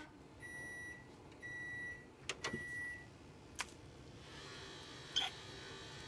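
Five-disc DVD changer beeping three times as it is switched off: three steady high beeps about a second apart, then a few sharp clicks.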